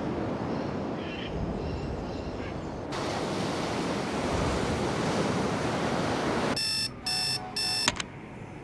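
A steady rushing noise that grows louder about three seconds in, then a digital alarm clock beeping three times, stopped by a click as it is switched off.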